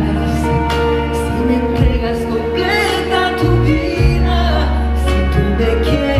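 Live pop ballad: a woman sings lead with vibrato over a full band, with a bass line moving through slow held notes and drums with cymbal hits.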